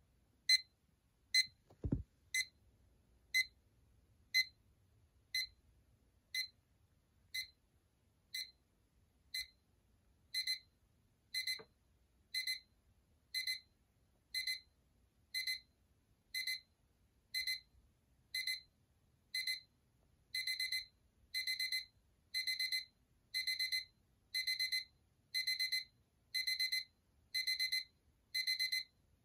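LEGO minifigure digital alarm clock sounding its alarm as the set time is reached: a high-pitched electronic beep about once a second, turning into quicker double beeps after about ten seconds and into longer bursts of rapid beeps after about twenty seconds.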